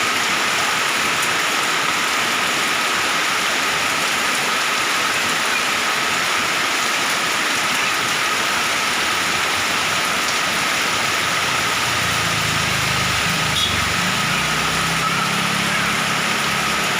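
Heavy rain falling steadily, a dense even hiss. About twelve seconds in, a low hum joins it.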